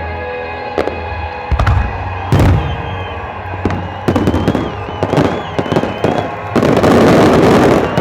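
Aerial fireworks going off in a quick series of sharp bangs, then a dense crackling burst about six and a half seconds in, the loudest part. Music from a sound system plays underneath.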